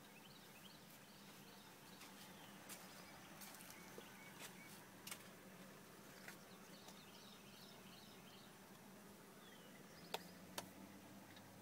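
Near silence: faint outdoor ambience with distant birds chirping in short repeated phrases, and scattered light clicks and taps, two sharper ones about ten seconds in.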